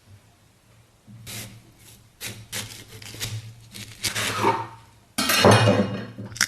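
Close-miked eating sounds: a run of sharp crackles and clicks, then a louder, noisier stretch lasting about a second from around five seconds in.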